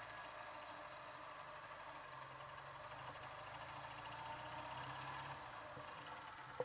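Ural motorcycle's flat-twin engine running. Its note picks up slightly in the middle, then eases off about five seconds in. There is a short click at the very end. The rider has been hearing an unexplained knock or grinding from this engine at mid revs under load, which he puts down to the timing gears, the generator gear or the oil-pump drive gear.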